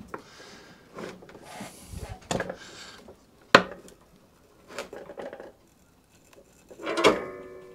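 Pull cord and steel tension spring being levered onto a Hayter mower's height-adjustment bar: rubbing and scraping at the start, a sharp click about three and a half seconds in, and near the end a metallic clang that rings on briefly.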